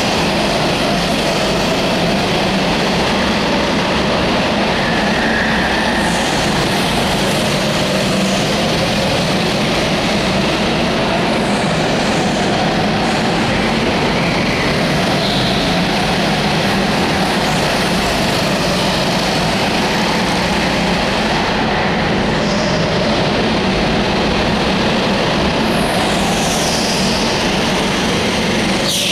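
Several go-kart engines running together in an indoor track hall: a loud, steady drone whose pitch rises and falls as the karts speed up and slow down.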